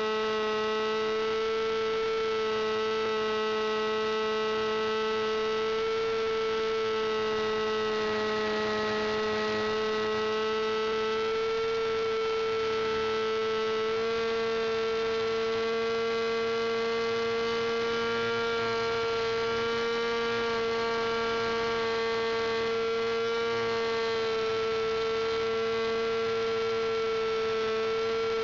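Small fuel-burning engine of a radio-controlled aerobatic model plane running at steady high revs, picked up by a camera on board the plane: a loud, even buzz whose pitch shifts only slightly as the plane flies.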